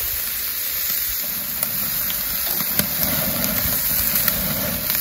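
Bacon strips sizzling on the hot grate of a charcoal kettle grill, a steady hiss. A low rumble builds underneath from about a second in, and a few light clicks come as tongs turn the strips against the metal grate.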